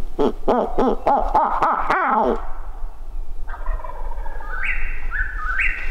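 A wild turkey gobbler gobbles once: a rapid rattling run of notes lasting about two seconds. After a short gap a songbird begins singing, short rising notes repeated about twice a second.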